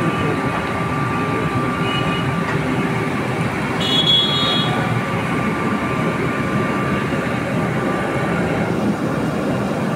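Steady, loud roar of commercial kitchen gas burners under large cooking pots, with a thin steady whine through most of it.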